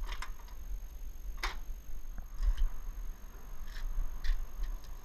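Scattered sharp clicks and knocks from an aluminium ladder and the pool enclosure's aluminium frame being handled and climbed. The loudest knock comes about one and a half seconds in, over a steady low rumble.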